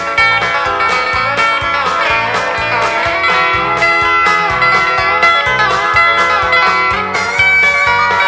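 Instrumental break in a country gospel song: a country band plays with a lead guitar line with bending notes over a steady bass and drum beat, with no singing.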